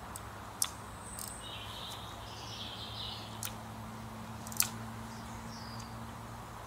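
Small birds chirping over a faint, steady low hum, with two sharp clicks, one about half a second in and one a little past four and a half seconds.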